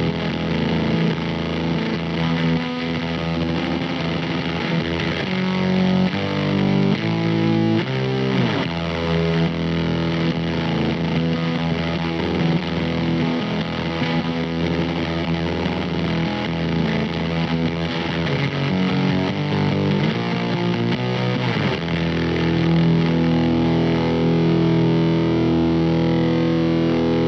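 Electric guitar played through a Weird Noise Effects fuzz pedal: heavily fuzzed chords and riffs with a couple of sliding notes, ending on a long held chord in the last few seconds.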